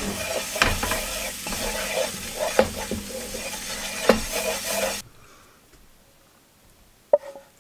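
Creamy sauce sizzling in a nonstick frying pan while a wooden spatula stirs and scrapes it, with a few knocks of the spatula against the pan. The sizzle cuts off suddenly about five seconds in, and a single knock comes near the end.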